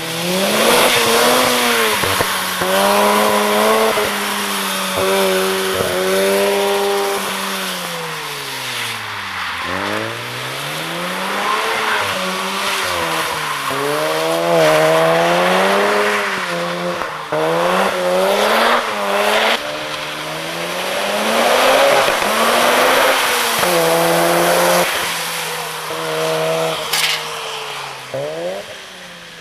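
Mazda RX-7 FD's 13B-REW twin-rotor sequential twin-turbo rotary engine revving hard under load, its pitch climbing and falling again and again through the gears. The revs drop low about ten seconds in and again near the end.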